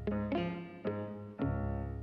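Instrumental background music, with a new note or chord sounding about twice a second and fading between strikes.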